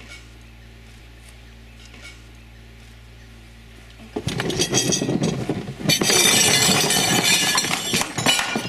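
A few faint clicks over a quiet background, then about four seconds in a sudden loud jumble of knocks, scraping and rustling as a bull elephant swings its head and trunk into people seated at a table and the camera is knocked about.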